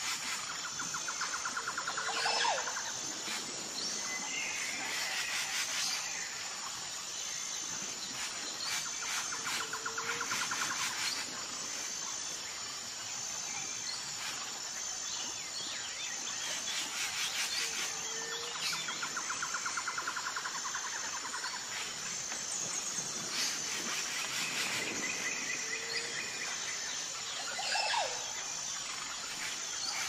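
Insects and birds outdoors: a steady high-pitched insect shrill, with a rapid pulsing trill and short rising bird calls that come back every several seconds.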